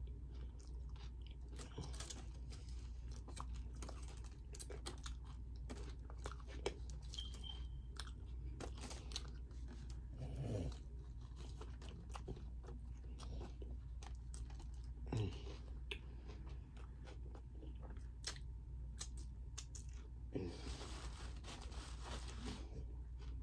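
Close-up chewing and crunching of carne asada tacos, with many small wet mouth clicks. Near the end there is a couple of seconds of rustling, which fits the aluminium foil wrapper being handled.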